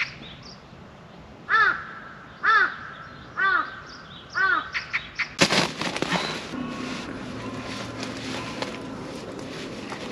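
A crow cawing four times, about a second apart. Then a sudden change to a noisier background with scattered clicks and a low hum.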